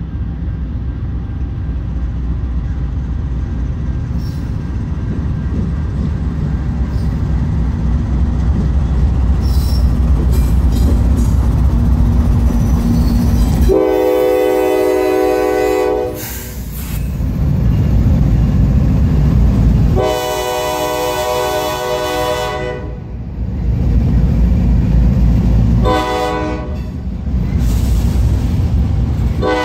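Norfolk Southern freight train with diesel locomotive 7600 in the lead: the engines' low rumble builds as it approaches, then the locomotive horn sounds long, long, short and the start of a final long blast, the grade-crossing signal, as the locomotives and hopper cars roll past.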